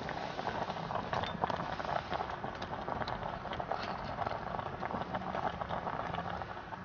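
Small wood fire crackling and hissing in a perforated camp stove, with a pot of noodles boiling on top of it.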